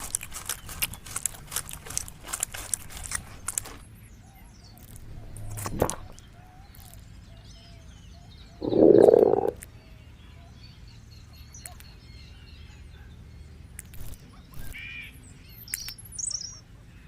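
Birds chirping, with a fast run of clicks in the first few seconds, a sharp knock about six seconds in, and a loud burst lasting about a second around nine seconds in.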